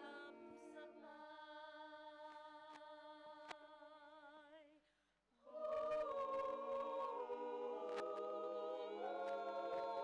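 A cappella choir singing slow, sustained chords, with vibrato on the held notes. About five seconds in, the singing breaks off for half a second, then the choir comes back in louder on a new chord that moves through several pitch changes.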